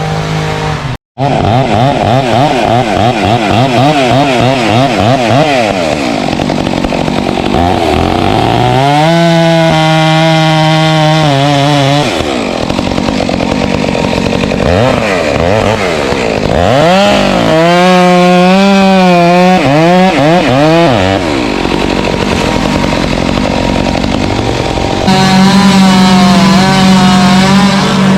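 Stihl MS 462 two-stroke chainsaw making a notch (pie) cut in a pine trunk to fell it: the engine revs up and down, is held at full throttle for a few seconds at a time while cutting, and drops back between cuts. The sound breaks off for an instant about a second in.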